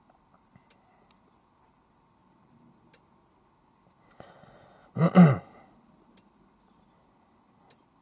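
A man's short voiced sigh about five seconds in. Faint scattered clicks and ticks sound at other times.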